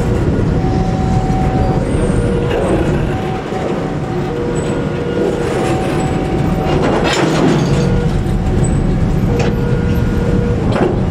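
Empty container flatcars of a freight train rolling slowly past: a steady rumble of wheels on rail with a few clanks and screeches, strongest about seven seconds in. A two-tone level-crossing warning alarm sounds over it, switching pitch about once a second.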